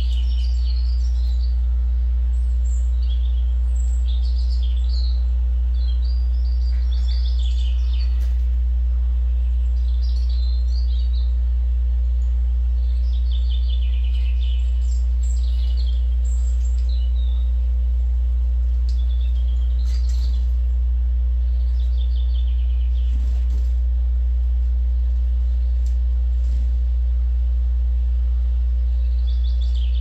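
Small songbirds chirping and twittering in short clusters every couple of seconds, played from a bird-feeder video on the computer screens, over a strong steady low hum.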